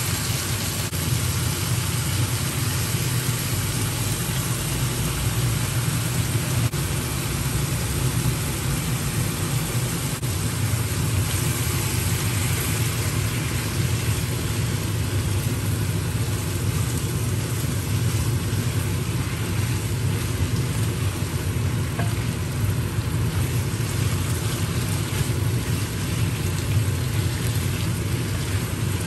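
Chicken, shrimp and pork liver sizzling as they stir-fry on high heat in a steel pan, turned over with a spatula. A steady low hum runs underneath.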